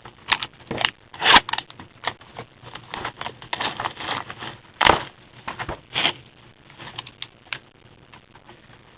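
Crinkling and tearing of a trading-card box's plastic wrap and packaging as it is opened by hand: irregular crackles with a few sharper rips, the loudest about a second and a half in and again around five and six seconds in.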